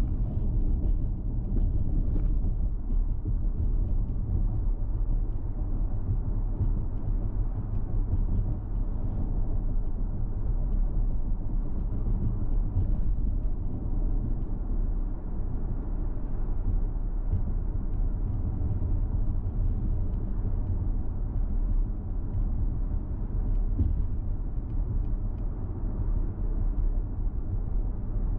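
Steady low rumble of a car driving along the road: tyre and engine noise.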